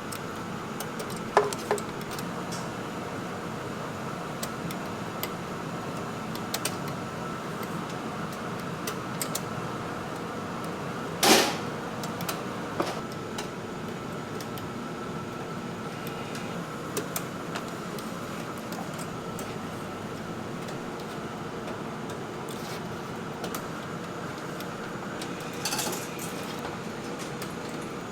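Steady hum of kitchen machinery with a faint whine, broken by occasional clinks and knocks of utensils or trays; one louder, brief clatter comes about eleven seconds in.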